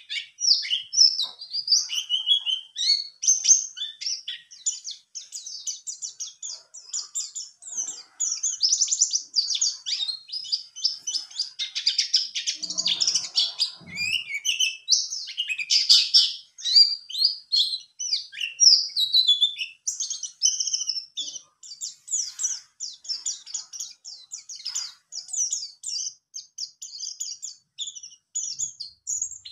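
White-eye (pleci buxtoni) singing a fast, unbroken stream of high chattering chirps and trills. It is a newly caught bird about ten days in the cage, starting into its full 'wiksar' song.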